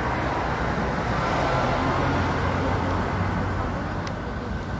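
Steady road traffic noise: vehicle engines running with a low hum under the rush of passing traffic.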